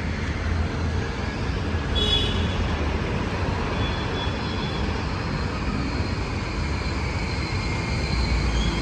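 Steady road traffic noise, with a low engine rumble growing stronger near the end as a car approaches.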